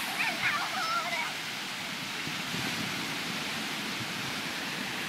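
Steady rush of ocean surf breaking on the beach, with a brief high voice calling out during the first second or so.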